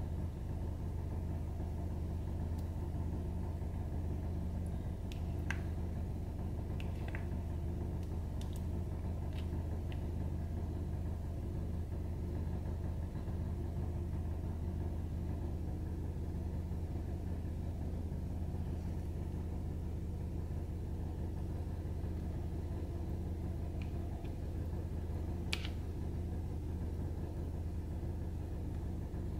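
Steady low hum, with a few faint light clicks scattered through it, the clearest near the end.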